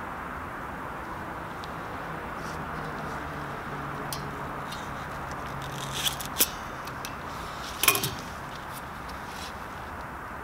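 Small metallic clicks of piston ring expander pliers and a piston ring as the ring is spread and fitted onto a 1.9 TDI diesel piston, with a sharper clack about eight seconds in. A steady hiss runs underneath.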